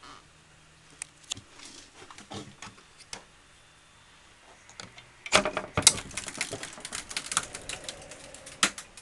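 Handling clicks and rattles: a few separate sharp clicks, then from about five seconds in a dense, quick run of clicking and rattling that stops near the end.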